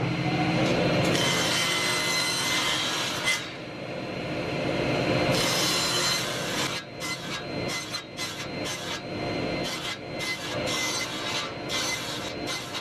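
Table saw running while a square plywood blank is turned against the blade on a pivot nail, trimming it into a round disc. The cutting is steady at first and breaks into short, uneven bites in the second half as the blade takes off the last of the corners.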